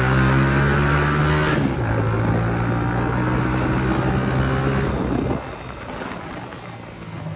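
Hi Speed Infinity 150's single-cylinder engine pulling under acceleration. Its pitch climbs, drops as it shifts up about a second and a half in, then pulls again. About five seconds in the throttle is closed and the engine sound falls away.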